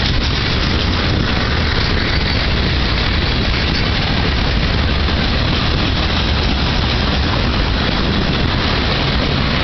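Freight cars (boxcars, covered hoppers and tank cars) rolling past close by: a loud, steady rumble of steel wheels on the rails.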